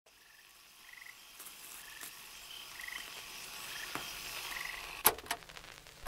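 Frogs calling in rainforest: short pulsed calls repeating about once a second, with higher chirps in between, over a faint hiss that slowly swells. Two sharp clicks about five seconds in.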